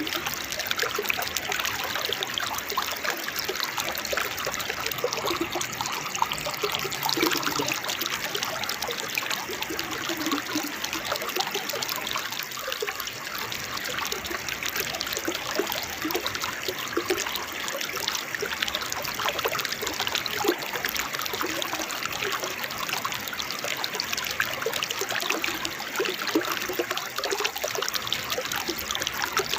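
Small waterfall trickling and splashing steadily, an even babble of running water with no pauses.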